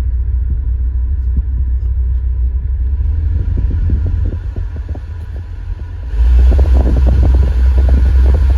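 Cabin blower fan of a 2015 Kia Soul running with a low rumble, which the owner suspects comes from the new cabin air filter or the broken filter door. About six seconds in it suddenly gets louder as a rush of air joins the rumble.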